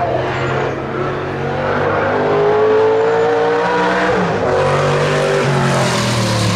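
Historic racing car's engine running hard as it approaches and passes close by at speed, its pitch sliding as it comes on. It is loudest and sharpest near the end as it goes past.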